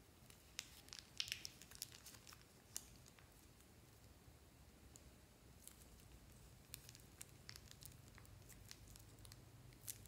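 Faint crinkling of a soft plastic piping bag and small sticky clicks of slime as hands squeeze and pull the last pink slime out of it. The clicks come in scattered clusters, busiest in the first three seconds and again in the second half.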